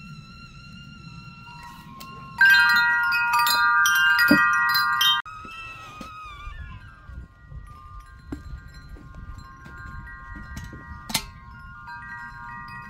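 Enamel whistling kettle at the boil: a steady whistle that jumps to a loud, shrill multi-tone whistle for about three seconds and stops abruptly, then falls in pitch and goes on more faintly as the kettle is lifted. A single sharp knock near the end.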